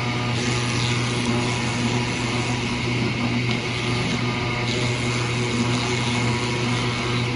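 CNC oscillating-knife cutting machine running through a cut, a steady, unchanging mechanical hum.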